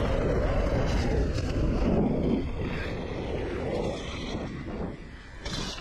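Wind rumbling on an action camera's microphone, with tyre and frame rattle from an electric mountain bike riding a trail. It is loudest for the first two and a half seconds and then eases off as the bike slows.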